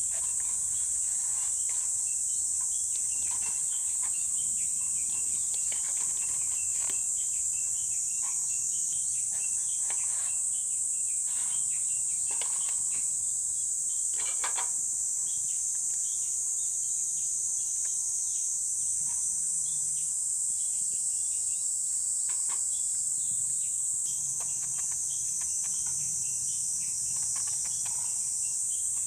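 Insects droning steadily at a high pitch, with scattered sharp crackles throughout.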